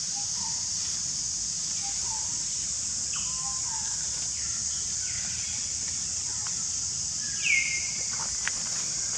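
Steady high-pitched outdoor hiss, like a forest insect chorus, with scattered short high chirps and squeaks; about seven and a half seconds in, a louder call slides down in pitch and holds briefly.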